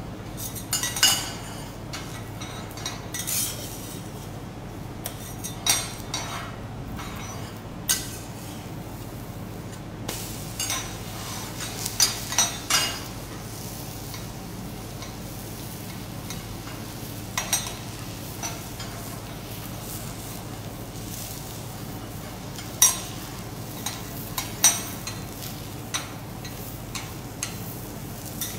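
Metal spatulas scraping and clanking on a hot teppanyaki griddle at irregular intervals, over a steady sizzle of okonomiyaki cooking on the iron plate.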